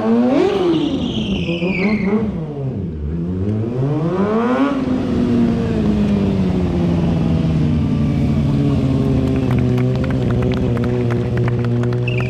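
A stunt motorcycle's engine revving up and down twice in quick swings, then held at steady revs that slowly drop away, with faint ticking in the last few seconds.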